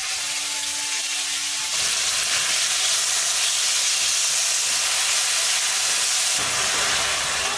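Finely chopped onions sizzling steadily as they hit hot oil with whole spices and fry in a kadai, stirred with a wooden spatula.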